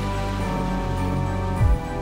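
Background music with long held notes and a deep low thump about one and a half seconds in.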